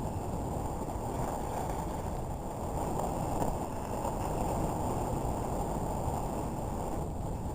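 Steady rushing noise of a moving dog sled, mostly wind buffeting the microphone.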